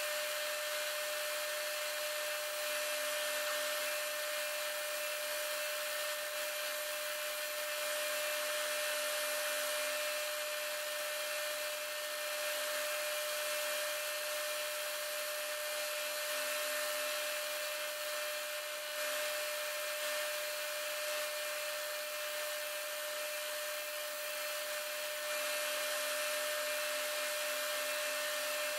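A bench woodworking power tool runs steadily with a high whine while the end of a wooden stick is pressed against it and worked to a point.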